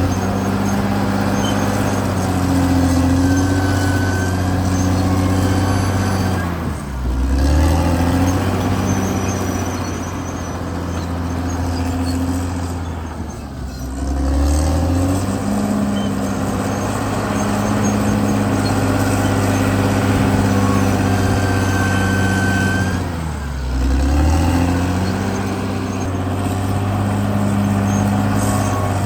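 CAT D6R XL bulldozer's diesel engine running steadily under load. Three times, about a quarter of the way in, near the middle and about four-fifths in, the engine note drops sharply and then climbs back up.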